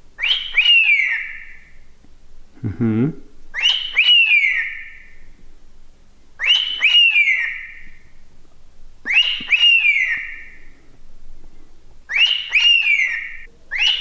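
Cockatiel calling at its own reflection in a mirror. It gives a two-note whistled contact call, each note rising then falling, five times, about every three seconds.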